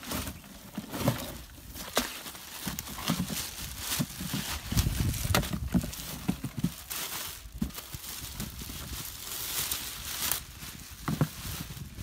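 Plastic packing wrap crinkling and cardboard box flaps rustling as an earth auger powerhead is lifted out of its box and unwrapped, with irregular knocks and clicks from the handling.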